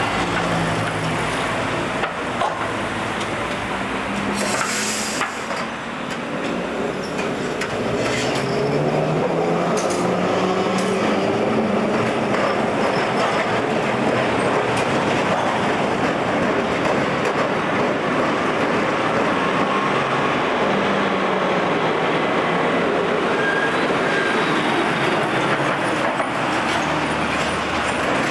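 W class trams and passing cars running along a street: a steady traffic and tram running noise, with a motor whine that rises in pitch from about six to twelve seconds in as a vehicle accelerates.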